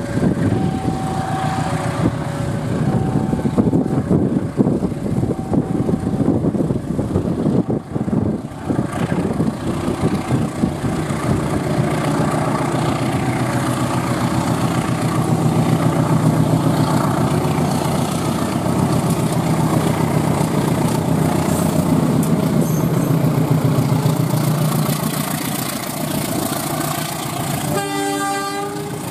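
Diesel-electric locomotive hauling a passenger train out of the station under power, its engine drone growing heavier and steadier as the train gathers speed and comes past. Short horn sounds are heard.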